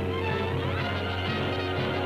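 Orchestral music with shifting instrumental notes over a steady low tone.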